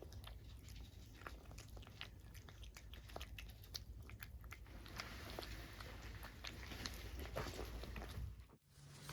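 A cat chewing and crunching food, with irregular small clicks and crunches. The sound cuts off suddenly near the end, and a low hum takes over.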